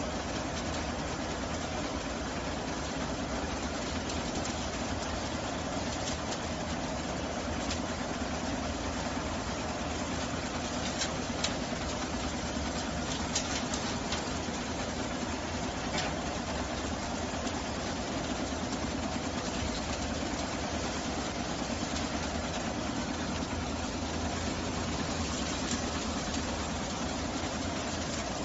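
Compact ride-on street sweeper running steadily as it drives over pavement, its two rotating side brushes scrubbing the road surface, with a few sharp ticks near the middle.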